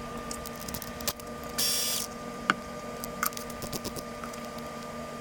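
A small electric motor whirs briefly about one and a half seconds in, amid light clicks and taps of handling parts, over a steady electrical hum.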